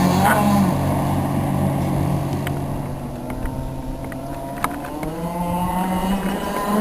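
Twin Zenoah 22.5 cc two-stroke petrol engines of a radio-controlled racing catamaran running. They drop back under a second in, run quieter through the middle with a few short clicks, then climb in pitch from about five seconds in as the throttle opens again.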